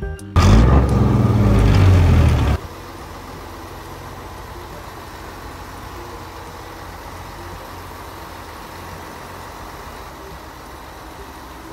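A fishing boat's inboard engine running steadily at an even speed, heard in the engine hold. For the first two seconds or so a loud rush of wind and churning water covers it, then cuts off abruptly.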